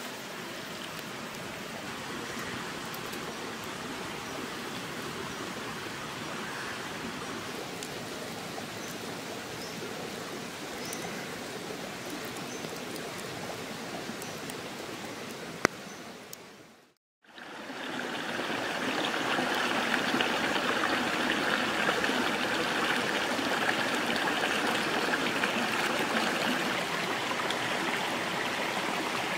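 Rocky stream flowing with a steady rushing of water over stones. For the first half there is a quieter, even hiss. Just past halfway the sound drops out for a moment, then the stream comes back louder.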